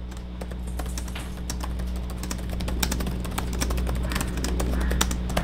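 Fast typing on the itel Able 2 laptop's MacBook-style built-in keyboard: a quick, uneven run of light key clicks.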